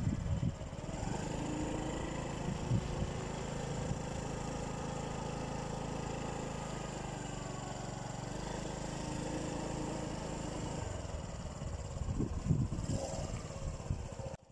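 A small engine running with a steady, even hum. There are irregular low rumbles at the start and again near the end.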